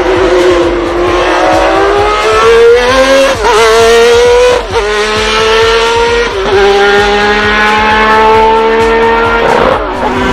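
Ferrari 333 SP's V12 engine heard onboard, accelerating hard through the gears. The note climbs and dips at quick upshifts about three and a half, four and a half and six and a half seconds in, then makes a long pull that falls away near the end.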